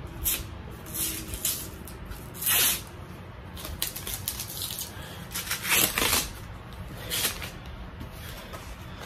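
Rustling and scuffing of the iMac's soft white protective wrap as hands handle it and pull it back: a string of short swishes, the loudest about two and a half and six seconds in.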